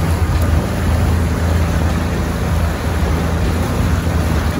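Small motorboat under way at speed: water rushing and spraying along the hull from the bow wave, over the steady low drone of its 60 hp Suzuki outboard.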